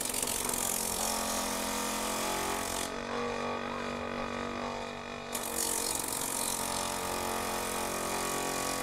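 Electric bench polishing machine running with a steady motor hum while the edge of a sandal sole is pressed against its spinning sanding wheel: side polishing of a cut slipper sole. Two hissing, grinding passes, the first breaking off about three seconds in and the second starting about five seconds in.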